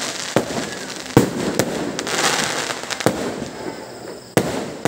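Aerial fireworks shells bursting: about five sharp bangs, the loudest about a second in and near the end, with a crackling hiss of the burst trails around the middle.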